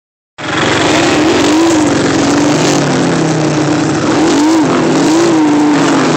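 Small off-road vehicle engine running and revving, its pitch rising and falling several times, under a loud rushing noise. It starts abruptly about half a second in.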